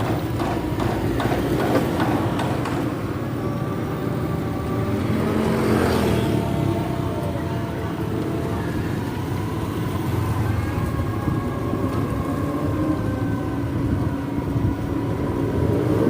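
Road and wind noise from a moving three-wheeled e-bike: a steady low rumble of wind on the microphone with faint wavering whines. A vehicle passes about six seconds in.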